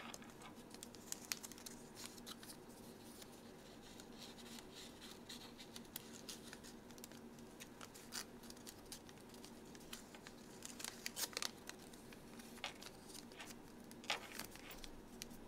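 Sheets of origami paper being folded and creased by hand: faint, scattered crisp crinkles and clicks, with a cluster of louder crackles a little past the middle and another near the end.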